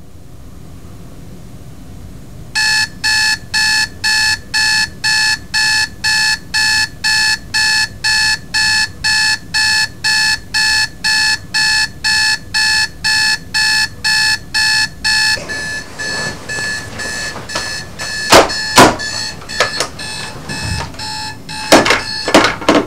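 Spartus digital alarm clock beeping, an evenly repeated high electronic beep about twice a second that starts a couple of seconds in and then carries on more faintly. Several loud knocks come near the end.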